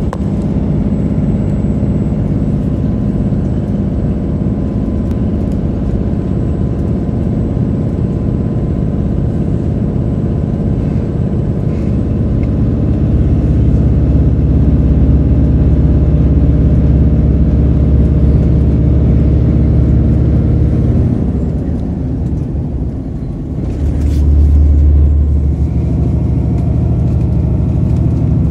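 Steady low rumble of a vehicle in motion heard from inside its cabin, with an engine drone running under it. It grows louder about halfway through, eases briefly and then swells deeper again near the end.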